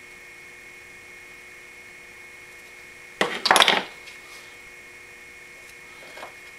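A short metallic clatter a little over three seconds in, lasting under a second, as small metal hand tools knock on the workbench. It sits over a steady faint electrical hum.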